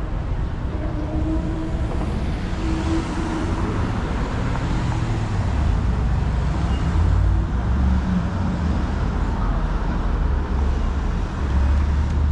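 Street traffic: cars driving past with a steady low engine rumble and tyre noise, one passing closer about three seconds in.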